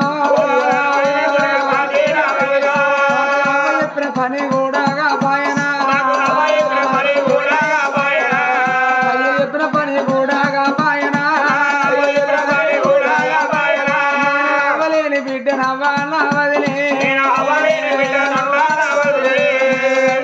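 Oggu Katha folk music: a barrel drum beating steadily at about four strokes a second under a held melody.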